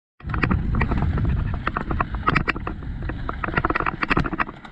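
Mountain bike riding over a rough, rocky dirt trail: tyres on loose gravel and the bike clattering with many sharp knocks over the bumps, over a steady rumble of wind on the microphone. It starts abruptly a moment in.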